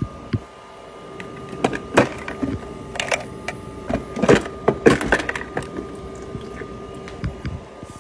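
HiCOZY countertop ice maker running with a steady hum, while ice and the plastic ice basket clatter in a string of sharp knocks, loudest about four to five seconds in.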